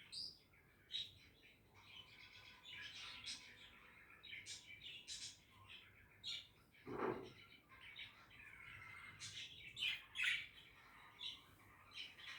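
Budgerigars chattering and warbling, a continuous run of short high chirps and twittering calls, with one louder, lower call about halfway through.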